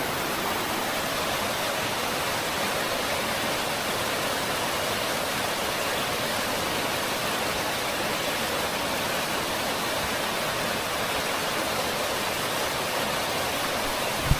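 Waterfall rushing steadily, a constant hiss-like roar of falling water, with one short knock just before the end.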